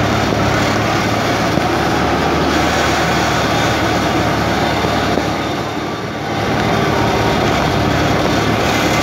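Steady running noise of a moving vehicle heard from inside: a low engine drone under a broad rush of road and wind noise. It dips briefly about six seconds in, then picks up again.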